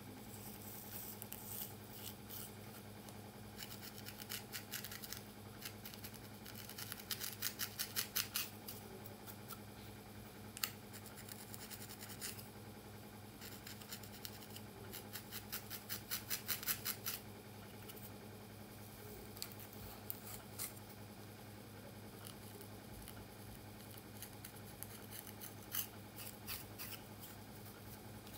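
Close-up crackling and scratching of coarse natural hair as cornrows are unbraided by hand and picked apart with a comb. It comes in bursts of quick crisp ticks, over a steady low hum.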